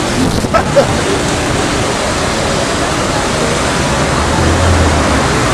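Steady rush of water pouring into a canal lock through the sluices of its upper gates as the chamber fills. A brief low hum joins about four seconds in.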